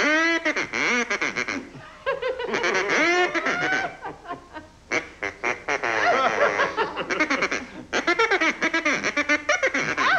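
Duck call blown in quick strings of quacks and honks that rise and fall in pitch, like talking, with short pauses between phrases.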